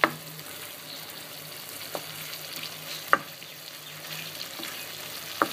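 Beef curry frying in oil in a pan, sizzling steadily, with four sharp clicks spread through it.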